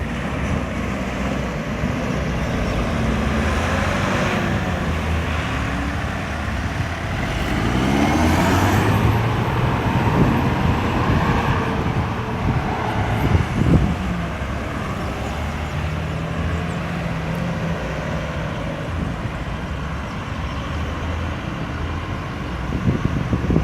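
Steady road traffic of cars, trucks and buses going round a busy roundabout, with engines running. A louder vehicle passes close about a third of the way in, its engine pitch gliding, and there are a few short knocks a little past the middle.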